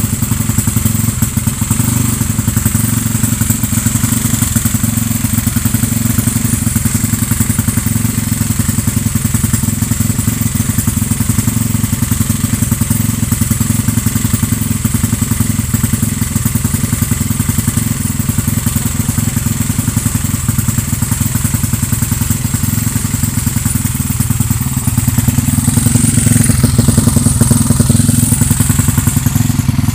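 Motorcycle engine running at a steady idle after a crankshaft replacement, the revs rising for a few seconds near the end.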